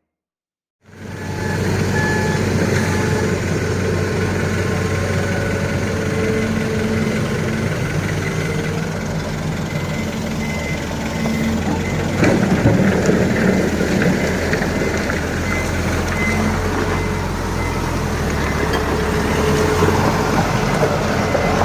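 Dump truck's diesel engine running steadily at a work site, with an intermittent high beep that comes and goes.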